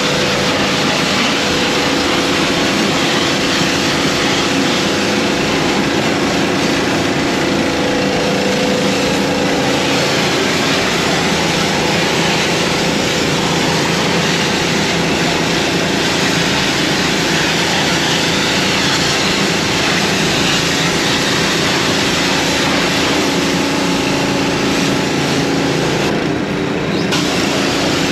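A machine running steadily and loudly with a constant hum, the hiss in it briefly dulling near the end.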